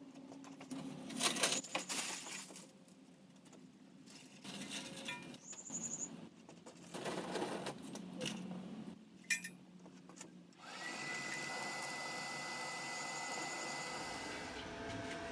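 Clatter and scraping of the fuel being worked in a brake drum forge, then about eleven seconds in an electric air blower switches on and runs with a steady rushing noise and a thin whine, blowing air into the charcoal and coke fire to get it going.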